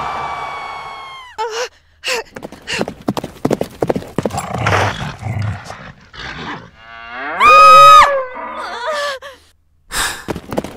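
Bull moo sound effects. A long moo tails off in the first second or so, followed by a run of clicks and short rustling sounds. About seven and a half seconds in comes a loud bellow that rises in pitch and then holds, with a few shorter grunts after it.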